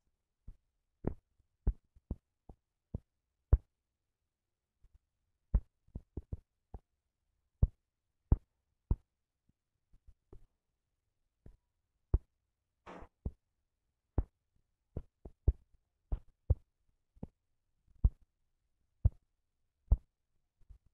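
Irregular sharp clicks, about one or two a second, of typing on a phone's touchscreen keyboard, with a brief rustle about 13 seconds in.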